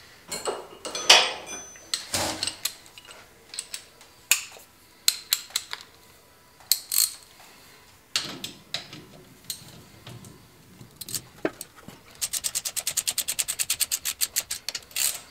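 Metal parts of a power steering pump bracket clinking and knocking as it is fitted by hand to the engine. Near the end a socket ratchet clicks rapidly, about eight clicks a second, as the bracket bolts are run down.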